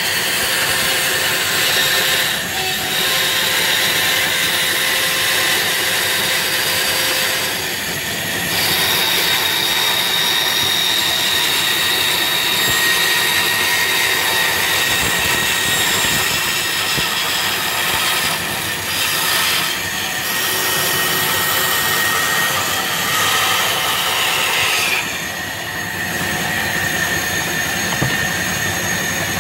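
Bandsaw running and cutting a curve through a wooden board: a steady high-pitched whine over the hiss of the blade in the wood, with brief dips in level now and then.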